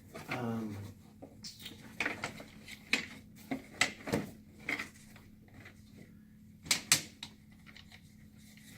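Irregular clicks, knocks and rattles of a folding massage chair's frame and fittings being handled and fitted together, with two louder knocks about four and seven seconds in.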